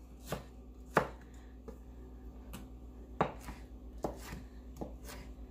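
Kitchen knife chopping strawberries on a bamboo cutting board: about nine sharp knocks of the blade on the wood at an uneven pace, over a steady low hum.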